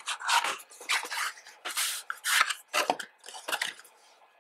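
A black cardboard sleeve being opened and a folded cloth bandana slid out of it: a run of short, dry paper scrapes and rustles, with the last one just before the end.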